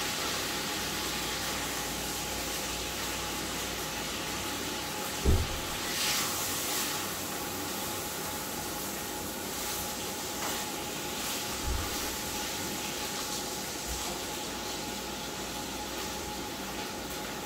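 Steady hiss of Spam and beans cooking in a cast-iron skillet over a propane camp-stove burner, with a few knocks as a spatula stirs the pan.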